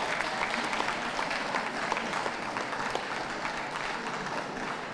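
Audience applauding steadily: a dense patter of many hands clapping.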